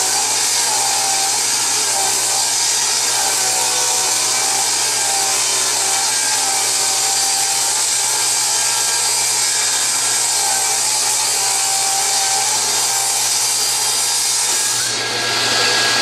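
Table saw running and ripping a maple board lengthwise along the fence, a steady loud whine of blade and motor. The sound dips briefly and shifts near the end.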